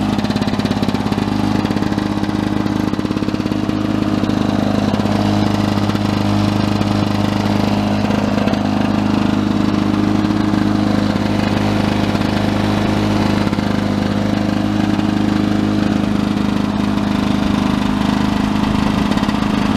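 1982 Lawn-Boy 5126 mower's OMC F-380 two-stroke engine running at a steady speed, an even drone, running well with nothing wrong.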